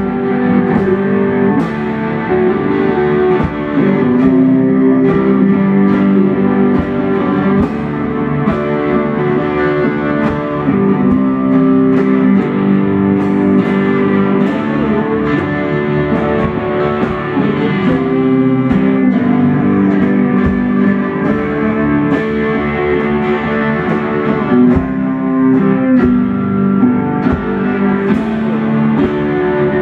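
Two electric guitars played through amplifiers, strummed chords with a drum kit keeping a steady beat: a live band jamming.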